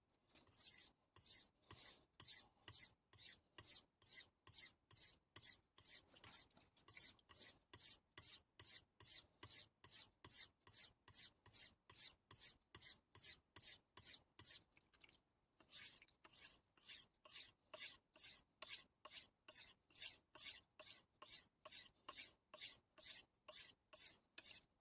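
Kitchen knife blade stroked back and forth on a wet 3000-grit whetstone that is building slurry: a rhythmic scraping hiss at about two strokes a second, with a brief pause about fifteen seconds in.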